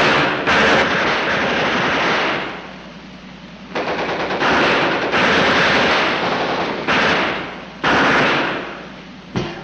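Machine-gun fire on a film soundtrack: several long bursts, one after another, with short breaks between them.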